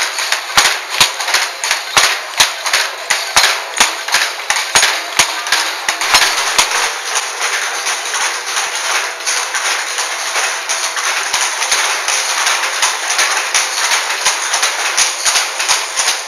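Wooden ATBM handlooms clacking as they weave lurik cloth: a rhythmic wooden clack about two or three times a second as the shuttle is thrown and the beater strikes. The clacks are loudest for the first six seconds, then go fainter over the steadier clatter of several looms at work.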